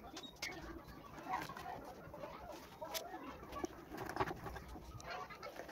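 Birds calling, like fowl clucking and cooing, with a few sharp clicks.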